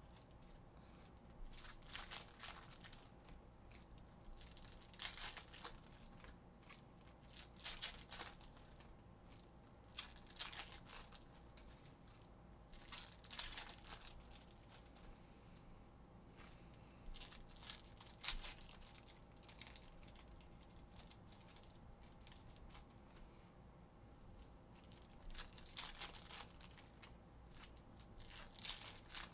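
Foil packs of football trading cards being torn open and their wrappers crinkled, in short faint rustling bursts every two to three seconds.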